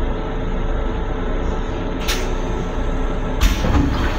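Steady running noise of a Long Island Rail Road M7 electric railcar, heard inside its small restroom, with a sharp knock about two seconds in and a louder thump and rattle about three and a half seconds in.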